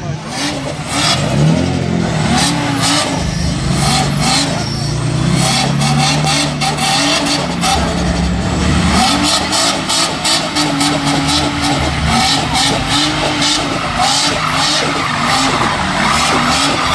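A car doing a burnout: the engine is held at high revs that swing up and down again and again, over the steady hiss and squeal of spinning tyres, with many sharp crackles.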